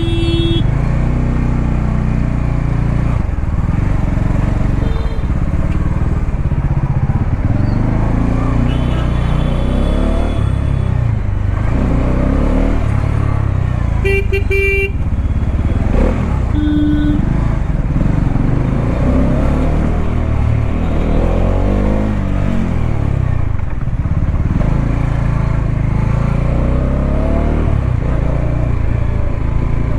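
Motorcycle engine running on the move, its pitch rising and falling as it revs through the gears, over steady road and wind noise. Vehicle horns honk briefly a few times, at the start, about halfway through and near the end.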